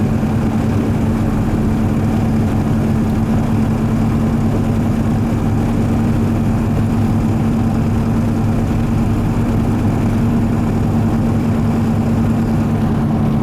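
Cab sound of a 2002 Ford F250 with a straight-piped 7.3 Powerstroke turbo diesel driving at a steady speed: an even, low drone with a strong hum over road noise. It carries the rotating, grinding noise the owner is chasing, which he thinks could be a bad front wheel bearing or worn tires.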